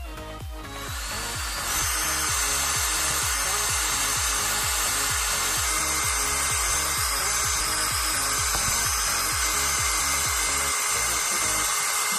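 18-volt cordless drill spinning up about a second in and boring into a smartphone: a steady high whine over a grinding hiss. Background music with a steady beat plays underneath.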